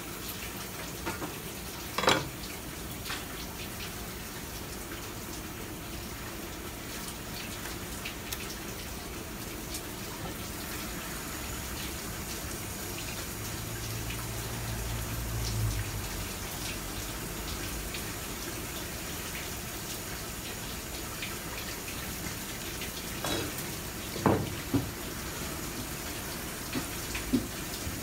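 Tap water running steadily from a faucet over a squid being rinsed and cleaned on a cutting board, with a few sharp knocks about two seconds in and again near the end.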